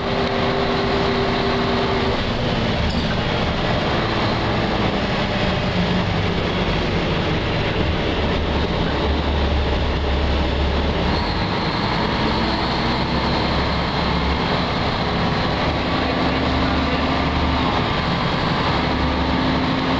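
Ride noise inside a moving city bus: a steady rumble of the drivetrain and tyres, with a few humming tones that change pitch now and then as it drives.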